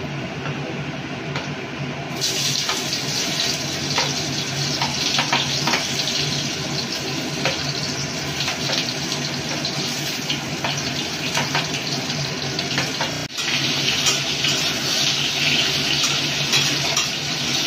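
Fried vegetables tipped into hot oil and panch phoron in a kadai, sizzling with a loud steady hiss that rises sharply about two seconds in, with a spatula scraping and clicking against the pan while they are stirred.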